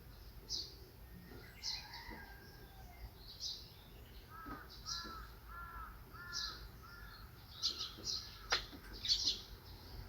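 Birdsong in a park: short high chirps repeating every second or so, and in the middle a run of about five short arched calls in a lower voice, crow-like in character.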